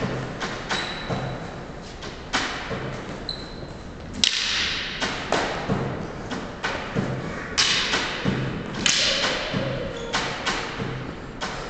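Wooden fighting canes clacking against each other and striking, mixed with footfalls on the hall floor: a dozen or more sharp knocks at uneven intervals.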